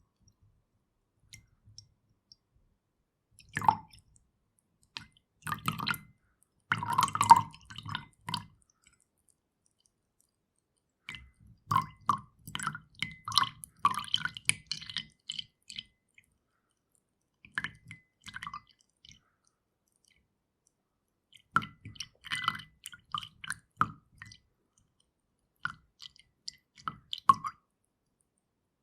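Milk poured into a glass in short, broken pours: about seven bursts of glugging and splashing, each lasting one to three seconds, with silent gaps between them.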